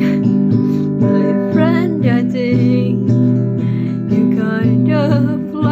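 Acoustic guitar strummed in a steady rhythm, with a voice singing or vocalising over it from about a second and a half in.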